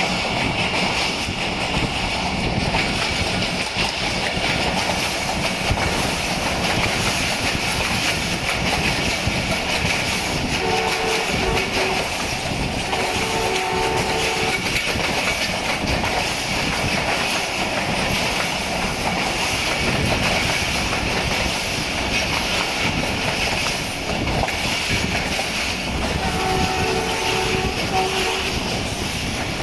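Passenger train running along jointed track with a steady rumble and clatter, while the ZCU 20 diesel locomotive's horn sounds short two-tone blasts: one about a third of the way in, a pair a couple of seconds later, and another pair near the end.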